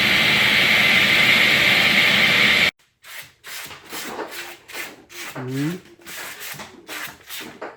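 A loud, steady whirring noise that cuts off abruptly about two and a half seconds in. It gives way to sandpaper rubbed by hand over a wooden board in repeated back-and-forth strokes, about two a second.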